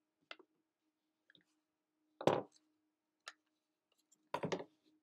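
A few separate small clicks and taps from handling a 12-gram CO2 cartridge and a bottle of pellet gun oil. The loudest comes a little past two seconds in, and a short cluster of clicks follows near the end.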